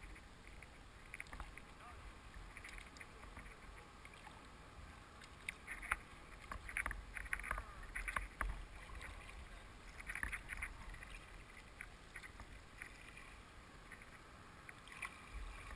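Water splashing and lapping at the bow of a paddled boat in small, irregular splashes, over a low steady rumble.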